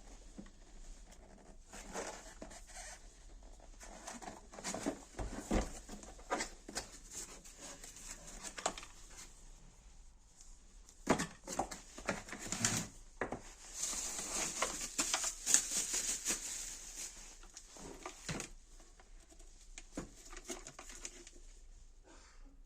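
Irregular taps, clicks and light scraping from close-up handling, with a stretch of denser, hissy scraping about two-thirds of the way through.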